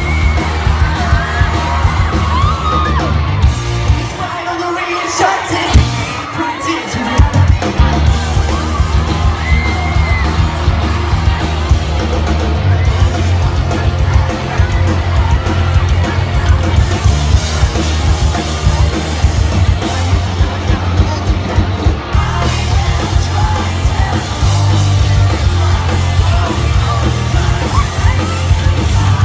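Loud live pop-rock band playing in an arena, heard from within the audience, with fans yelling and singing along. The bass and drums drop out about four seconds in and come back a few seconds later.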